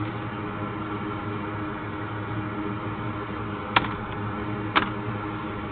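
Steady electrical hum and fan-like noise, with two sharp clicks about a second apart near the middle.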